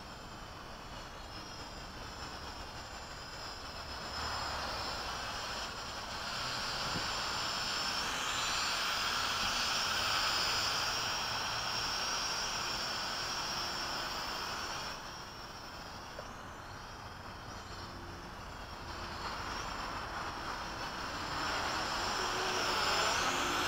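Hubsan H502E quadcopter's propellers whining as it flies nearby. It swells louder about four seconds in, falls back around fifteen seconds in, and rises again near the end as its distance changes.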